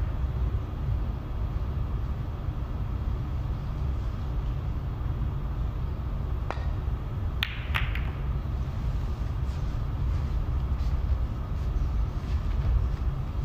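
Snooker break-off: a sharp click of the cue tip on the cue ball, then about a second later two louder clicks as the cue ball hits the pack of reds. Lighter clicks follow as the balls knock against each other and the cushions, all over a steady low rumble.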